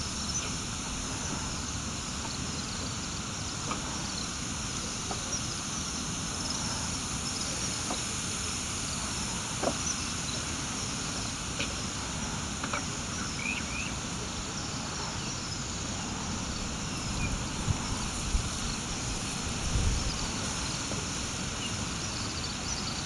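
Steady outdoor ambience of insects buzzing in grass, with light wind rumble on the microphone and a few faint short chirps.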